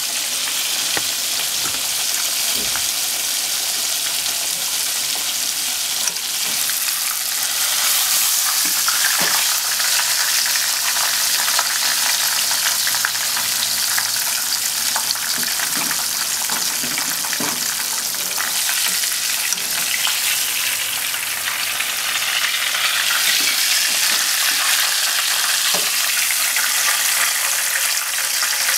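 Breaded pork cutlets (tonkatsu) deep-frying in a pot of hot oil: a steady, dense sizzle full of fine crackles.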